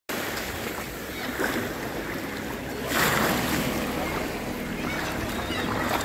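Seawater churning and splashing over rocks at the water's edge, with a louder surge about three seconds in.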